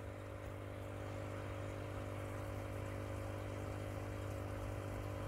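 Aquarium air pump humming steadily. It is a low, constant drone with a few fainter steady tones above it, over a soft hiss of air and water.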